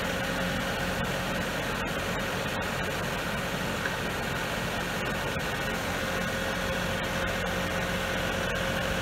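Engine of an amphibious Truxor reed cutter idling steadily.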